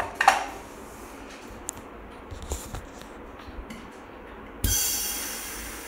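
Yuwell 7A-23D electric suction machine running, with a couple of clicks from handling its tubing near the start. About four and a half seconds in, a sudden hiss of air rushing in through the open suction tube, with a faint whistle, fading over about a second.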